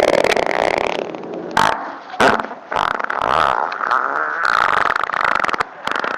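A rapid series of farts of different lengths, cut one after another: a long one at the start, then several shorter ones with brief gaps between them.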